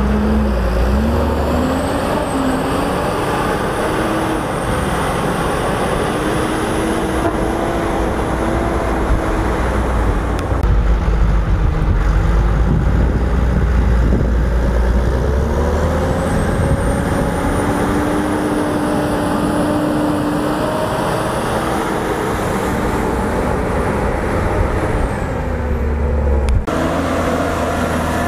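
John Deere 7920 tractor's six-cylinder diesel engine working under changing load as it pushes and compacts chopped maize on a silage clamp with a front push blade, the revs rising and falling, with a high whine that rises and falls along with them. Shortly before the end the sound cuts to another tractor engine running more steadily.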